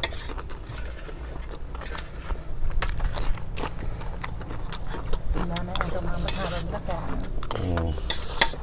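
Metal spoons scraping and clinking against stainless steel platters of rice in quick, irregular strokes.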